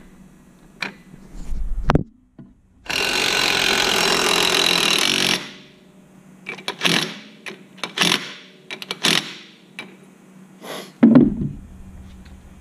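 Cordless DeWalt impact wrench hammering a castle nut onto an ATV's front hub, one steady run of about two and a half seconds. It is followed by several short sharp knocks and a heavier thump near the end.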